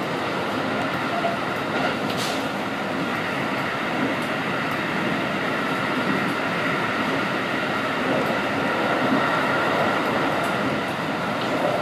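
Keikyu New 1000 series electric train running at speed, heard from behind the cab: a steady rolling rumble and wheel-on-rail noise. A brief sharp sound comes about two seconds in.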